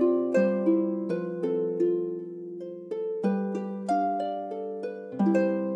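Background music: a slow melody of plucked or struck notes over chords, about three notes a second, each note ringing and fading.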